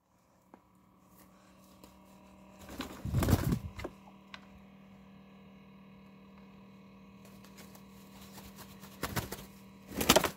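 Low, steady background hum broken by a few short rustling, scuffing noises, the loudest about three seconds in and two more near the end; the rooster does not crow.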